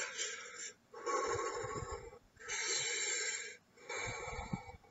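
A man breathing hard and loudly through an open mouth, about one heavy rasping breath a second, four in all. He is panting to cope with the burn of super-hot chilli sauce.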